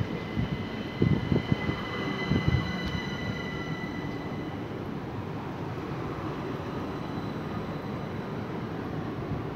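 Southern Electrostar electric multiple unit moving along the platform. Its wheels knock over the rail joints several times in the first few seconds, with a steady whine from the traction equipment that fades out about halfway through, leaving a steady rolling rumble.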